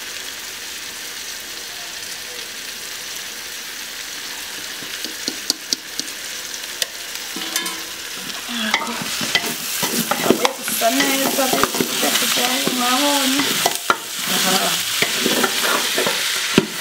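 Chopped onions and beef shank sizzling in an aluminium pot while a wooden spoon stirs them. It starts as a steady sizzle, and from about eight seconds in the spoon scrapes and knocks against the pot more and more, growing louder.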